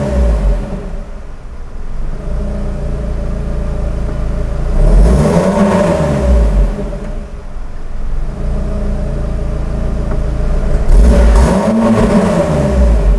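Lotus Elise 240 Final Edition's supercharged Toyota-built four-cylinder engine idling, with two quick revs through the exhaust, about five seconds in and again near the end, each rising and falling back to idle.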